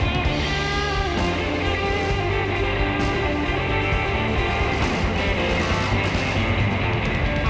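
Background music: a guitar-led rock track.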